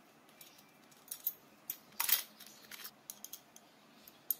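Steel base plate of a Black+Decker jigsaw being shifted and handled while it is set back from a 45-degree bevel to level: irregular light metallic clicks and scrapes, the loudest cluster about two seconds in.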